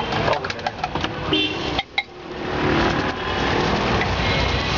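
Street-stall cooking: a run of sharp metallic clinks and taps, like a spatula on a griddle, then after a sudden break about two seconds in a hiss of frying that swells and holds steady, with street traffic behind.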